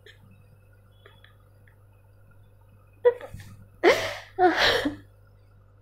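A woman's two loud, breathy vocal outbursts in quick succession, each under half a second, about four seconds in, after a small sharp sound a second earlier. A faint steady hum runs underneath.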